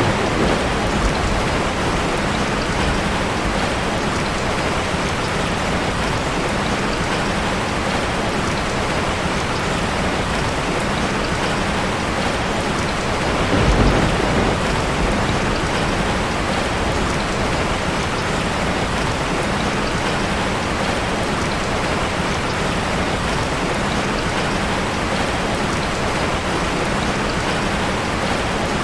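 Heavy rain falling steadily, a dense even hiss of drops on surfaces, with a brief low rumble of thunder about halfway through.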